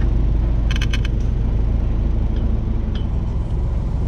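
Off-road vehicle's engine running low and steady as it crawls along a rutted dirt trail. A quick run of clicks comes about a second in.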